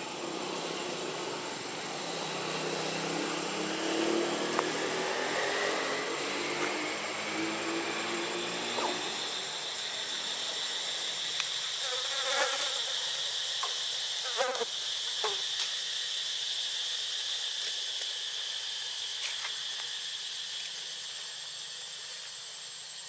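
Insects droning: a high, steady buzz that comes in strongly about halfway through, after a slowly rising whine in the first third. A few short, sharp clicks sound just past the middle.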